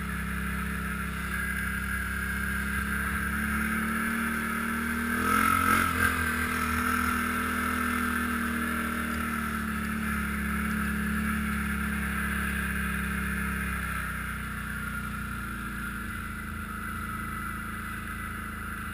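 ATV engine running under way on a snowy trail, its note rising and loudest with a few knocks about five to six seconds in. It eases off and drops lower about fourteen seconds in.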